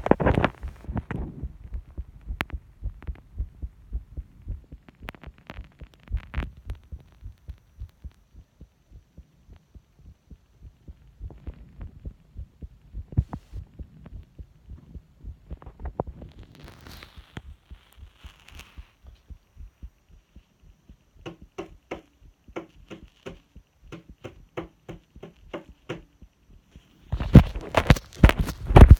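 Heartbeat picked up through a stethoscope microphone on the chest: steady, even low pulses. About three-quarters of the way in, a run of sharp knocks on a desk signals the next activity, and near the end loud, rapid thuds cover the heartbeat.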